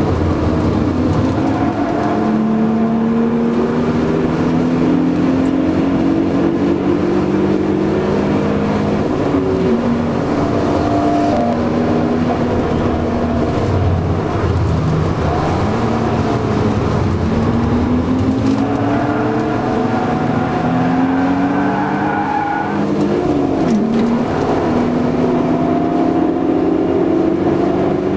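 BMW Z3 2.8's straight-six engine heard from inside the cabin under hard acceleration, its pitch climbing in long rising sweeps and dropping sharply several times at gear changes, over steady road and wind noise.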